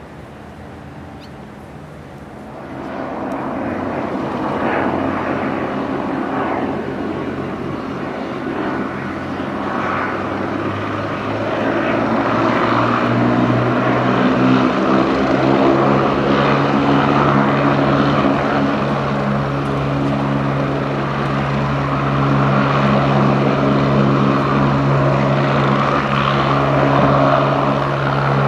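Agusta A109E Power twin-turbine helicopter on the ground spooling up: the turbine whine and rotor beat rise in pitch and get louder from a couple of seconds in, then settle into a steady run at full rotor speed.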